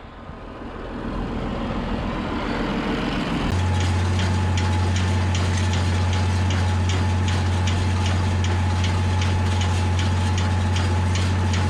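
Tractor engine running with a baler working behind it, building up over the first few seconds. About three and a half seconds in it changes abruptly to a louder, very steady drone with regular light ticks about three times a second.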